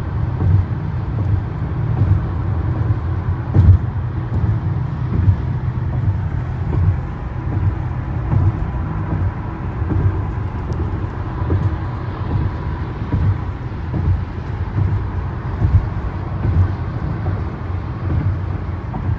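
Road noise inside a car cabin at highway speed: a steady low rumble of tyres and engine, with a few brief knocks, the loudest about three and a half seconds in.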